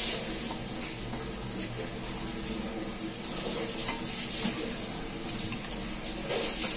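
Spiced onion-tomato masala sizzling and spluttering in a nonstick kadai, just wetted with a spoonful or two of water. A wooden spatula stirs it, scraping the pan a few times.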